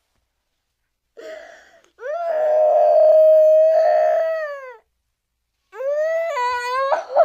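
Cartoon crying sound effect: a short sob, then one long wailing cry held at a steady pitch that falls off at the end. After a pause, a second, shorter wail that dips in pitch and rises again.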